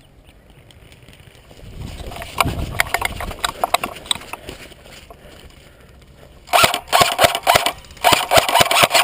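Airsoft gun firing on full auto: two long strings of rapid sharp clicks, the first about six and a half seconds in and the second starting about a second later. Lighter scattered clicks and rustling come before them, from about two seconds in.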